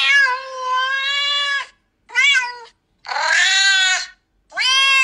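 A cat meowing four times: one long drawn-out meow, then three shorter meows about a second apart.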